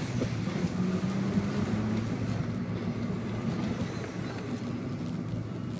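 Volkswagen Golf GTI MK5's 2.0-litre turbocharged four-cylinder engine running steadily, heard from inside the cabin.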